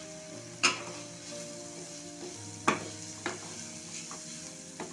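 Chopped onion and capsicum sizzling in hot ghee in a frying pan while a wooden spatula stirs and scrapes them. Sharp knocks of the spatula on the pan come under a second in and a little past halfway, the second the loudest, with lighter taps later.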